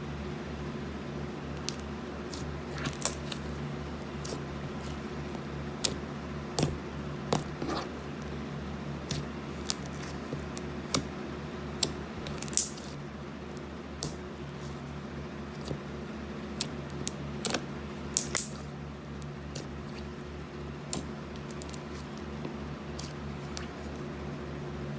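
Glue slime being handled and worked: irregular sticky clicks and short squelches, a few longer wet hisses, over a steady background hum.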